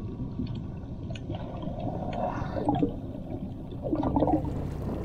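Water sloshing and bubbling around a submerged camera, heard muffled, with louder gurgles about halfway through and again near the end.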